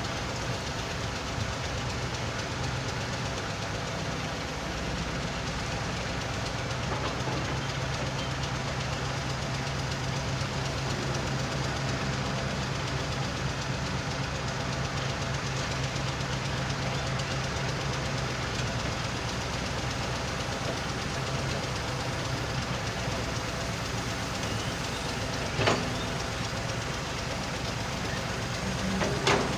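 Heavy machinery running steadily: an excavator's diesel engine and a stone-and-sand screening machine, with a constant low engine drone. Two short knocks come near the end.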